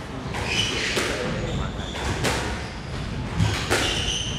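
Squash rally: the ball is struck by racquets and hits the court walls in several sharp knocks about a second apart, with sneakers squeaking on the wooden court floor.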